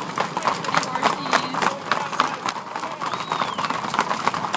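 A herd of horses walking on asphalt, many hooves clopping on the pavement in a dense, irregular clatter.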